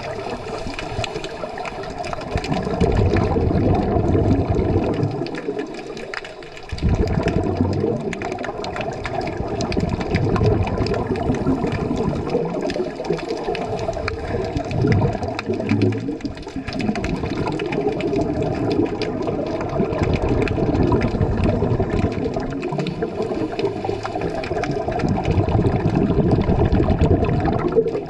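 Scuba diver's regulator heard underwater: exhaled air bubbles rush and gurgle in loud surges, with short lulls every five seconds or so as the diver breathes in.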